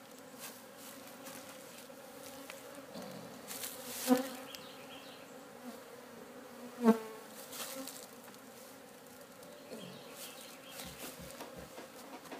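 Honeybees from a swarm newly settled in a hive, buzzing in a steady hum as the hive is opened and its frames lifted. Twice, about four and seven seconds in, there is a short, much louder buzz.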